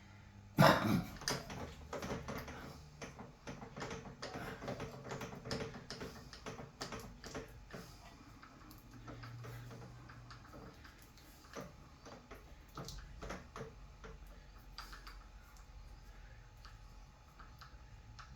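Irregular clicks and light knocks of small tools and metal parts being handled at a workbench. The loudest knock comes about half a second in, the clicks are dense for several seconds and then thin out. No machine is running.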